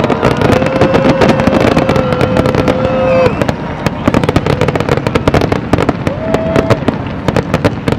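Aerial fireworks bursting in rapid succession: a dense barrage of bangs and crackles from many shells at once. A long held tone rides over it for the first three seconds, and a shorter one comes about six seconds in.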